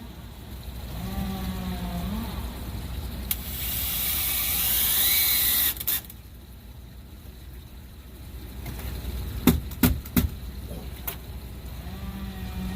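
Power drill driving composite exterior screws into a wooden porch post. A short motor whine about a second in is followed by a louder run of about two and a half seconds that stops suddenly. A few sharp knocks come near the end.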